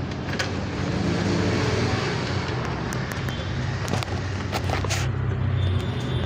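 Steady hum of a running motor vehicle, with a few short, light metallic clicks.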